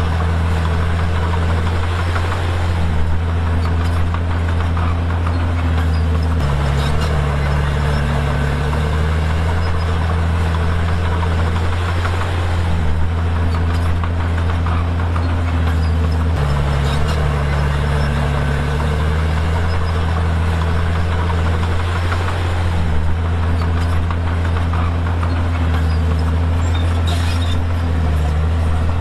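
Komatsu D51PX bulldozer's diesel engine running steadily under work, its pitch shifting and bending in a cycle that repeats about every ten seconds.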